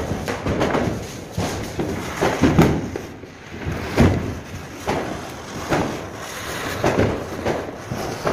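Diwali ground spinner fireworks hissing as they spin and throw sparks, with a string of irregular sharp pops and thumps, the loudest about four seconds in.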